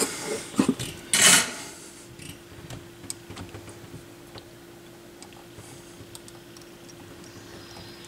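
Small clicks, taps and rustles of wiring being handled and tucked inside an open turntable chassis, with a short louder rustle about a second in. A faint steady hum runs underneath.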